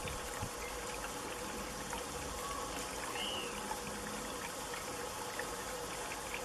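Decorative Buddha water fountain, water trickling and pouring steadily.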